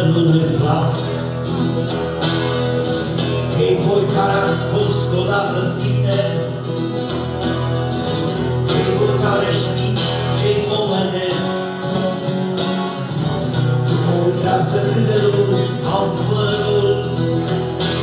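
Acoustic guitar strummed in a folk-pop song with a man's singing voice and a steady bass accompaniment.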